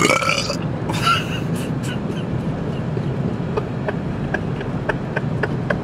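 Steady road noise inside a moving car. A short, loud vocal outburst with a rising pitch comes right at the start and a smaller one about a second in; near the end there is a run of light, evenly spaced ticks, about three a second.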